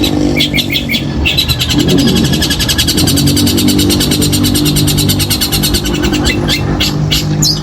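Long-tailed shrike (cendet) singing a fast rapid-fire run of sharp, high repeated notes, about ten a second, then breaking into looser separate calls near the end. A low steady drone runs underneath.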